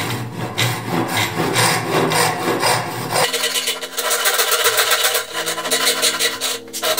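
Hand saw cutting across the end of a wooden hammer handle in rapid back-and-forth strokes, trimming it flush.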